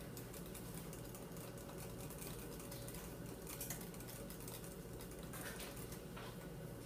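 Faint, light clicking and scraping of a whisk stirring egg whites and sugar in a heat-proof bowl over a pot of hot water: meringue mixture being stirred without pause so the whites don't cook. A steady low hum runs underneath.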